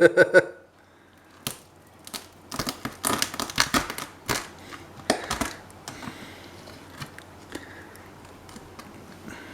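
A yabby (freshwater crayfish) being cut down the middle: a run of sharp cracks and crunches as the blade goes through the shell, bunched between about one and a half and five and a half seconds in.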